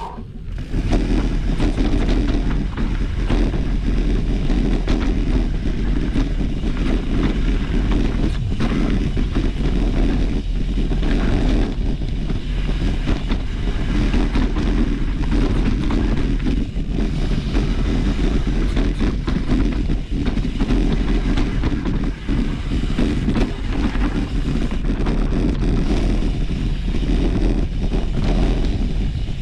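Continuous low rumble of wind on the microphone and tyre noise from a mountain bike riding along a trail, with a few faint knocks from bumps.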